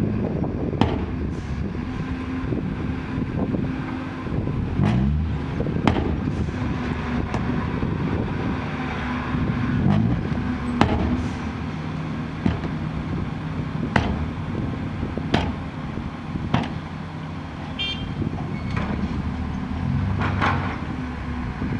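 Six-wheel dump truck's diesel engine running while the raised tipper bed is worked, its revs rising and falling a few times. About a dozen sharp knocks come at irregular spacing over the engine.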